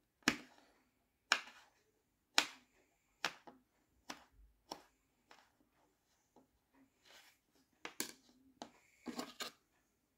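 A plastic knife tapping down onto a tabletop as it cuts through kinetic sand: sharp taps about once a second at first, then fewer and fainter, with a quick cluster of taps near the end.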